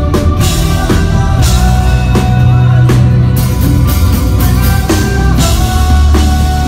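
Live rock band playing loudly with no vocals: a drum kit keeping a steady beat under heavy bass and held sustained notes.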